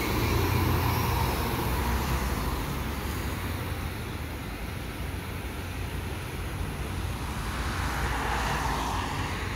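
Road traffic: a car drives past at the start, leaving a steady low rumble of passing vehicles. The noise swells again near the end as more traffic comes by.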